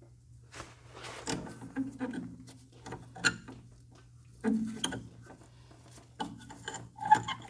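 Hand tools working the hydraulic hose fitting on a BMW E32 self-leveling suspension accumulator: irregular metallic clicks, knocks and rattles, over a steady low hum.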